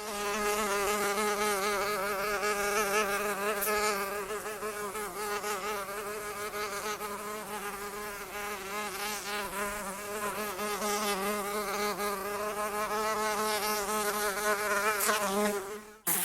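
A single housefly buzzing in flight, a steady wingbeat hum whose pitch wavers slightly as it moves about, cutting off just before the end.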